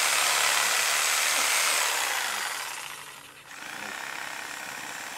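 Corded electric chainsaw running as it cuts through pine branches, then winding down and stopping about three seconds in.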